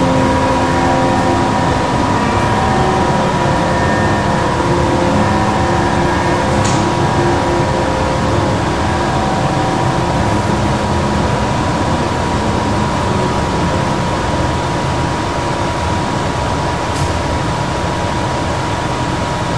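Steady rushing background noise with a faint steady hum, and two faint ticks.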